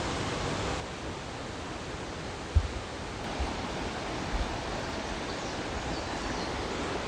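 Steady rush of the Wailuku River's water tumbling through its falls and pools, with a short low thump of wind on the microphone about two and a half seconds in.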